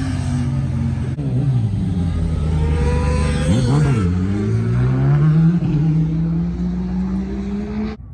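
Racing motorcycle engines revving on the circuit: the engine note drops as the revs come down, dips and swoops sharply about halfway, then climbs steadily under hard acceleration for the last few seconds.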